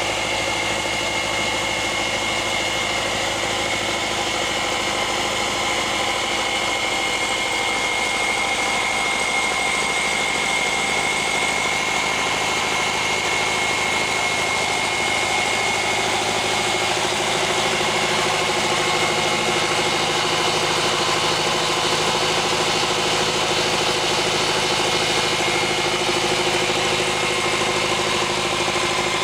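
Belarus tractor's diesel engine running steadily, driving a belt-and-shaft flour mill grinding wheat, with a steady high whine over the engine note. The engine note shifts slightly about halfway through.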